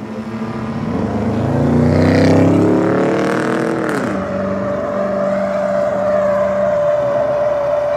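GMC pickup truck engine revving hard under acceleration. Its pitch climbs for a few seconds, drops away about four seconds in, then settles into a steady drone.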